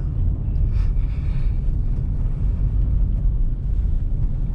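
Steady low rumble of a car driving on a snowy road, road and engine noise heard from inside the cabin.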